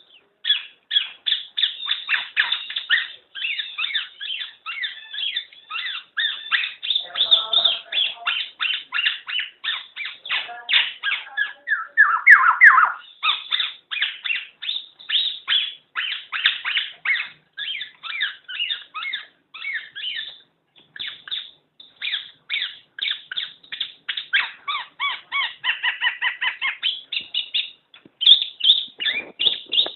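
Black-naped oriole (kepodang) calling: a fast, nearly unbroken run of short, sharp chirping notes, with a louder, lower-pitched burst of calls about twelve seconds in and brief pauses near the end.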